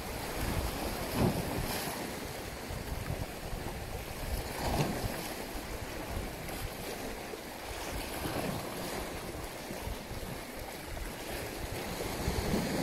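Wind buffeting the microphone over open sea, with waves lapping and splashing and a few stronger splashes about every three to four seconds.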